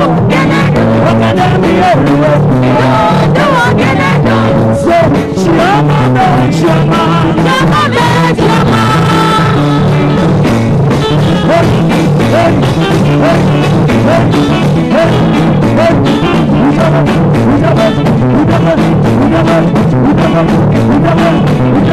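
Upbeat gospel band music with a walking bass line and a steady groove, with singing over it.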